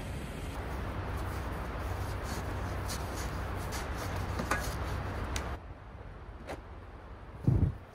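Shovel digging in packed snow around a stuck SUV's tire: steady scraping and crunching that stops suddenly about five and a half seconds in. A brief low thump follows near the end.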